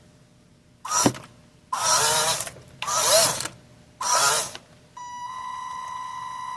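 RC crawler's 370 gearbox motor and drivetrain whirring in four short full-throttle bursts, each rising and falling in pitch. About five seconds in, a steady high electronic beep tone starts and holds.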